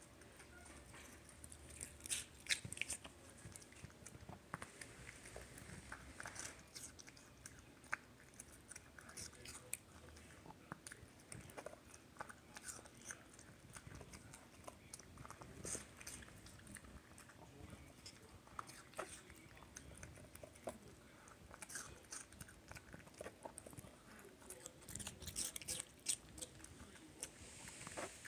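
Pomeranian chewing pieces of raw Asian pear, a run of irregular crisp crunches, with a denser cluster of bites near the end.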